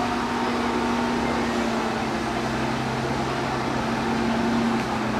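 Tractor engine running steadily, a continuous drone whose pitch sags slightly, with a deeper note joining about two seconds in.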